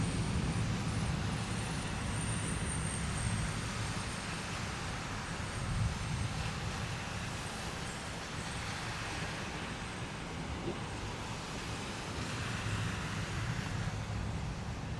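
Heavy rain falling steadily as a continuous hiss. The low rumble of a thunderclap dies away at the start, and an uneven low rumbling continues underneath.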